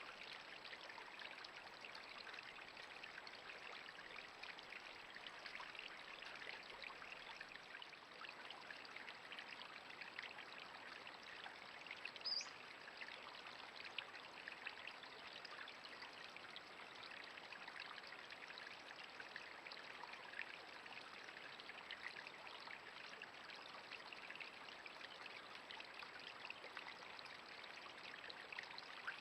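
Faint, steady trickling and splashing of running water at a small woodland stream or spring pool. Over it runs a thin steady high whine, and there is one short sharp click about twelve seconds in.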